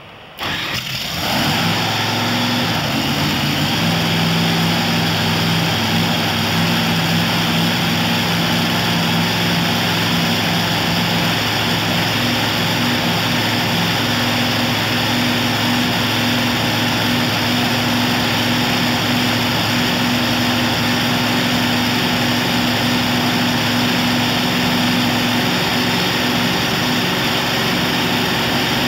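Top fuel dragster's nitro-burning supercharged V8 being started: it catches suddenly right at the start and settles within a second or two into a loud, steady idle.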